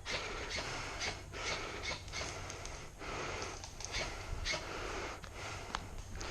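A person breathing heavily and fast close to the microphone, one noisy breath after another, in and out roughly once a second.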